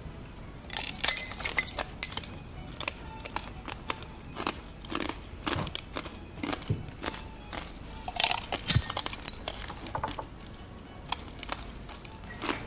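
Drinking glass being bitten and chewed: a run of irregular sharp crunches and cracks of breaking glass.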